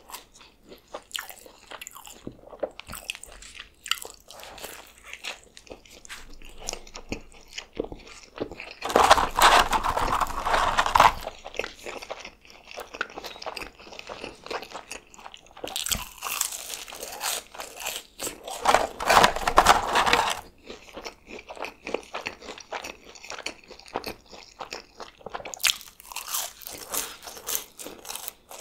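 Close-miked eating: bites and chewing of a McDonald's triple cheeseburger dipped in sauce, and of french fries, with three louder stretches of chewing, about a third of the way in, past the middle and near the end.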